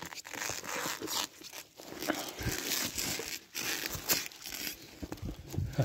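Plastic stretch film being pulled off its roll and wound tightly around a wooden pole, crinkling and crackling irregularly as it stretches.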